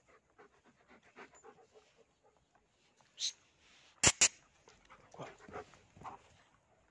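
German Shepherd dog panting close by, with two sharp knocks in quick succession just after four seconds in.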